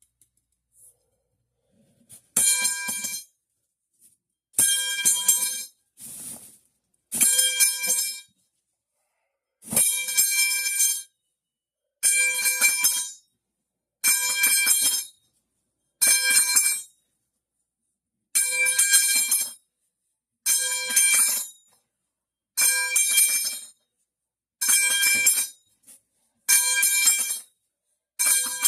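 The 'metal pipe falling' sound effect: a dropped metal pipe clattering and ringing with a bell-like clang. It repeats over and over, roughly every two seconds, starting about two seconds in.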